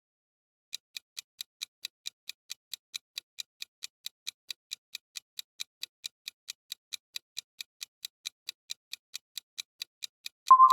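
Quiz countdown timer ticking evenly, about four ticks a second, then a loud bright chime near the end as the answer time runs out.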